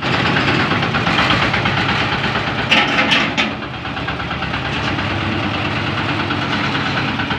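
An engine running steadily with an even pulsing beat, with a short louder noisy burst about three seconds in.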